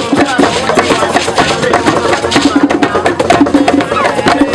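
Music with percussion: dense, rapid knocking clicks over a repeating low pulsed note.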